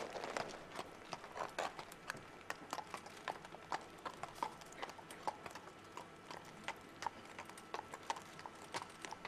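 Hooves of a ridden horse clip-clopping as it walks, an uneven run of light hoof strikes, several a second.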